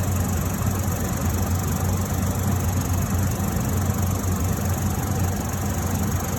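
Costway 15000 BTU portable air conditioner running: a steady rush of blown air over a low, even hum.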